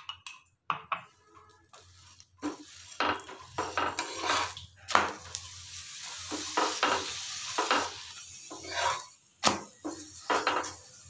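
Oil sizzling under a paratha frying on a flat non-stick pan, while a metal spatula scrapes, presses and taps it against the pan in irregular strokes.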